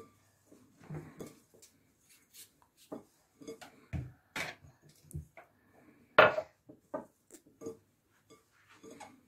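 Hands tossing and rubbing shredded kunafa dough with powdered sugar in a glass bowl: soft rustling with irregular knocks against the glass, the loudest about six seconds in.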